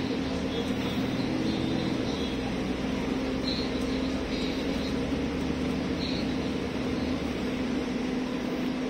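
Double-decker bus running along, heard from inside the upper deck: a steady drone of engine and road noise with a constant low hum.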